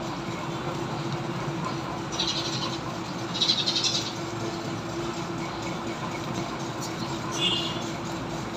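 Steady low background hum with three short scratchy rustles, about two, three and a half and seven and a half seconds in: gauze dressing being handled and peeled off a toe with gloved hands.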